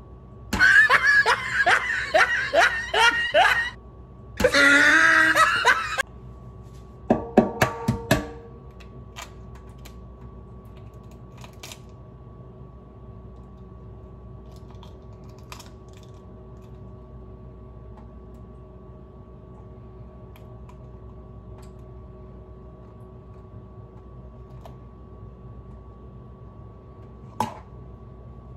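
A person laughing in several fits over the first eight seconds or so. After that comes a long stretch of faint steady room hum with a few small clicks.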